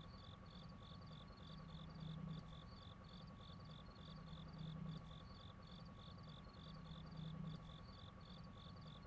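Near silence, with faint cricket chirping repeating evenly about three times a second and a faint low hum that swells every two to three seconds.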